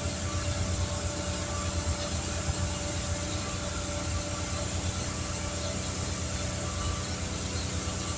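A motor running steadily: an even, low pulsing drone with a faint steady tone above it, unchanging throughout.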